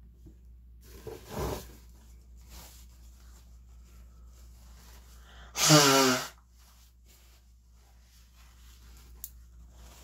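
A person sneezing: one loud sneeze near the middle, its voice sliding down in pitch, after a shorter, softer vocal burst about a second in.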